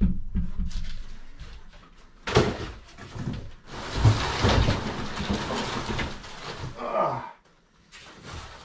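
Cardboard bike box and foam packing scraping and rustling as a bicycle is pulled up out of the box, with a sharp knock about two seconds in.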